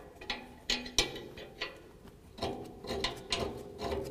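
Irregular light metal clicks and scraping as a tow-hook bolt and flag nut are threaded together by hand on a steel bumper bracket. The clicks come closer together in the second half.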